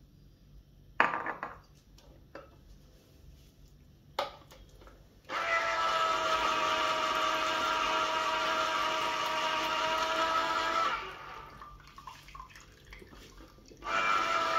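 Electric citrus juicer's motor running with a steady whirring hum as orange halves are squeezed on its cone. It stops a little past the middle and starts again near the end. Before it come a few knocks, the loudest about a second in.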